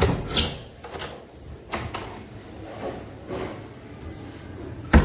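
Wooden flat door being opened by its metal lever handle: a few clicks and knocks from the handle, latch and door. A sharp bang near the end is the loudest sound.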